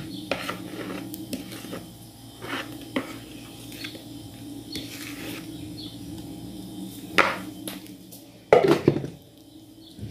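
A spatula tapping and scraping against a round aluminium cake pan as batter is spread in it, with a few louder knocks about seven and eight and a half seconds in, over a steady low hum.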